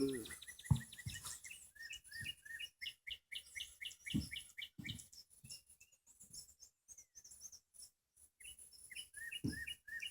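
A small songbird chirping in rapid series of short, repeated notes, about three a second, with a pause of a few seconds in the middle. A few faint low knocks are heard under it.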